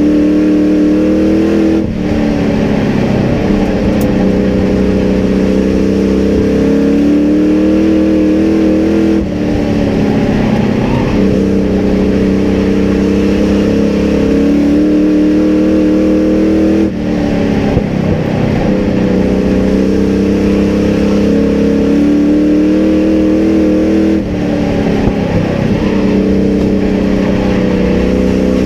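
Racing sport truck's engine heard from inside the cab at full race pace, its pitch climbing on the straights and falling off sharply for each turn, about every seven to eight seconds, lap after lap.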